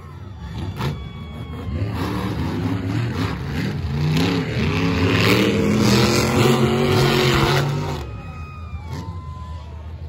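Monster truck engine revving hard under racing throttle, rising and falling in pitch. It is loudest in the middle and drops away about eight seconds in.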